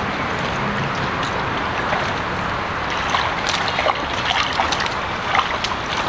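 Steady rushing noise of running water, with short high chirps or ticks scattered over it from about halfway.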